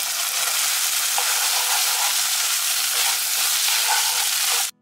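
Chopped onion, capsicum and green chilli sizzling in hot oil with tomato and soy sauce in a nonstick pan, stirred with a wooden spatula; a steady, loud frying hiss that stops abruptly just before the end.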